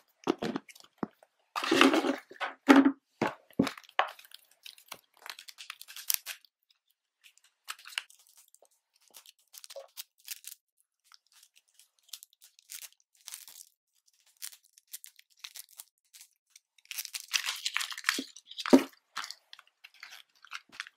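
Plastic toy packaging crinkling and crackling as it is handled, in scattered bursts with a quiet stretch in the middle and a denser burst of handling near the end.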